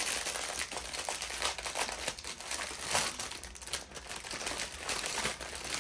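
Crinkling of a product package being handled and worked at by hand, a dense run of small crackles, while feeling for the opening.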